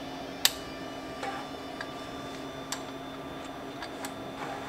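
A few scattered light metallic clicks, the loudest about half a second in, as a 10 mm wrench is worked on the bolt in the centre of a snowmobile's driven clutch. The bolt is being turned in to spread the clutch sheaves so the drive belt drops deeper for removal. A faint steady hum runs underneath.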